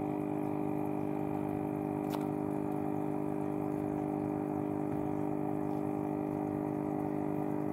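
Aquarium pump running with a steady hum while water bubbles and trickles in the tank, with one brief click about two seconds in.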